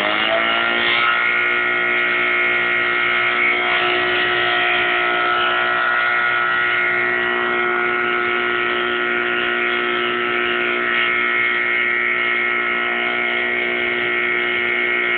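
Fire pump engine running at steady high revs, feeding a hose's water jet. Its pitch rises over the first second, then holds as a steady whine over a hiss until it cuts off suddenly near the end.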